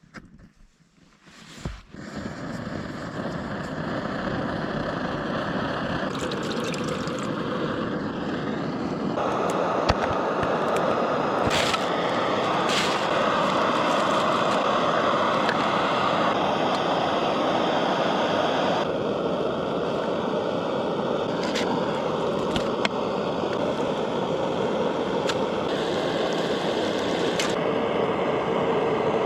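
Multi-fuel backpacking stove burning liquid white gas, a steady rushing noise that starts about two seconds in and gets louder about nine seconds in. A few sharp knocks sound over it.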